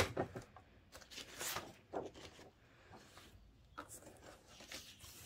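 A sharp click right at the start as the paper trimmer's cut finishes, then faint, scattered rustles and light taps of the cut paper strip being lifted and repositioned on the trimmer.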